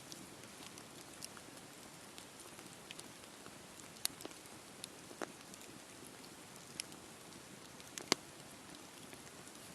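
Wood campfire burning: a steady soft hiss of flames with scattered crackles and pops from the burning wood. Two sharper pops stand out, about four seconds in and about eight seconds in.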